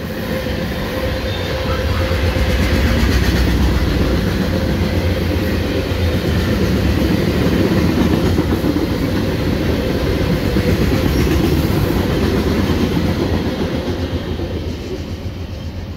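Norfolk Southern freight train's coal hopper cars rolling past at a grade crossing: a steady, loud noise of steel wheels on the rails, building over the first couple of seconds and easing slightly near the end.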